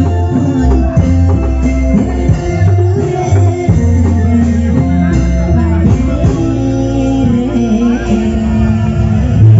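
Loud live Bleknong street-show music: a singer over steady drum beats and a sustained bass line.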